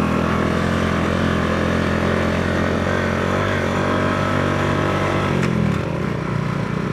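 Motorcycle engine running steadily while riding a rough road, its note dropping near the end as the rider eases off.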